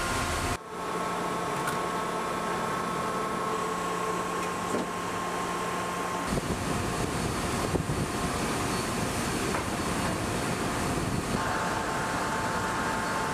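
Steady machinery hum of a replenishment ship's deck gear, mixed with rushing wind and sea, carrying a few steady tones; the mix shifts abruptly a few times.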